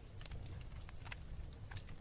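Wood fire crackling in a fireplace: irregular sharp pops and snaps over a low rumble of the burning logs.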